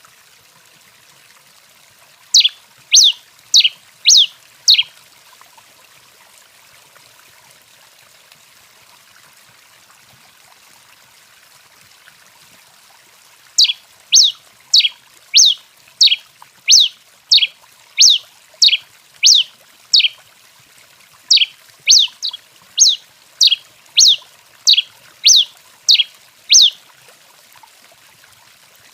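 A female tico-tico-rei finch calling with sharp, high, downward-sweeping chips. There are five in quick succession a couple of seconds in, then a pause, then a long even run of about twenty chips at roughly one and a half a second. A faint steady hiss sits underneath.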